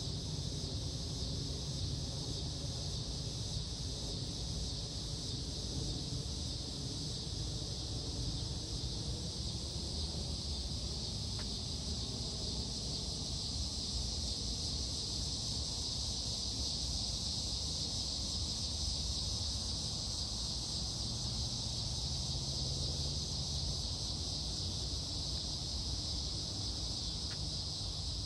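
Steady high-pitched chorus of insects, unbroken throughout, over a low steady rumble.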